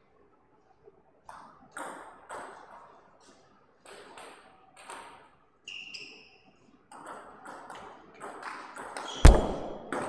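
Table tennis rally: the ball clicking back and forth between bats and table, a hit or bounce about every half second. A brief squeak comes around the middle, and a heavy thump near the end is the loudest sound.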